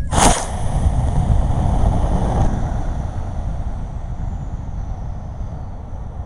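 Model rocket's C6-5 black-powder motor igniting with a sudden blast, then burning with a rushing hiss for about two seconds. After that, wind buffets the onboard camera's microphone as the rocket coasts, slowly fading.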